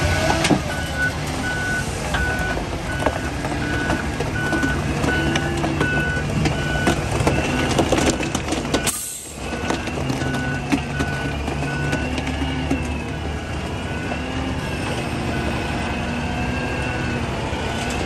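Reversing alarm of a McNeilus concrete mixer truck giving a steady high beep about once a second as it backs up, over the low rumble of the truck's running engine. Both cut out briefly about halfway.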